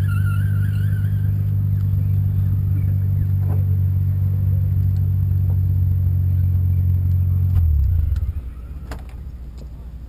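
Nissan Skyline R33 GTS-t's turbocharged RB25DET straight-six idling steadily at a standstill, then switched off about eight seconds in. After it stops, a few sharp clicks follow.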